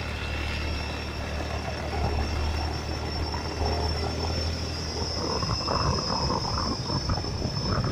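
Motorbike engine running steadily while riding along a lane, a low even hum with a steady high tone above it.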